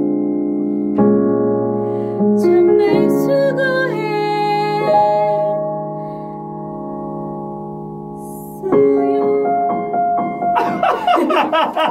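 Electric piano playing sustained chords, with a singing voice holding and sliding through a long note partway in. Hand clapping starts near the end.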